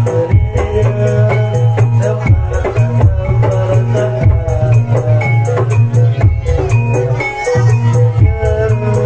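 Live jaranan music playing for a kuda kepang horse dance: drums and percussion with rattling, a steady low bass and a melody of held notes.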